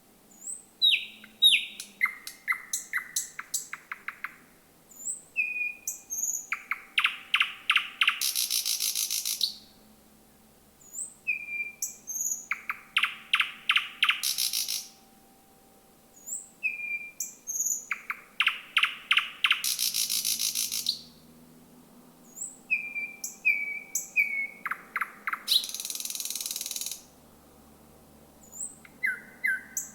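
Thrush nightingale singing: about five loud phrases, each mixing thin whistled notes, rapid series of clicking 'trott' notes and a harsh buzzing 'sirrr' rattle, with pauses of a second or two between phrases.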